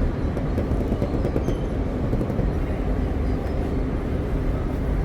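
Hino 500 truck's diesel engine running steadily.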